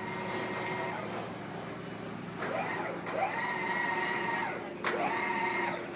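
A motor whine that rises in pitch, holds steady and winds down, twice, over a steady mechanical hum.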